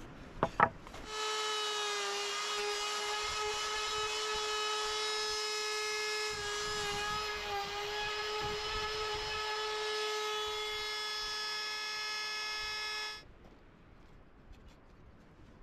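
Cordless Ryobi trim router running with a steady high whine as it cuts the wood, its pitch sagging slightly under load about halfway through. It starts about a second in, just after two sharp knocks, and shuts off suddenly about thirteen seconds in.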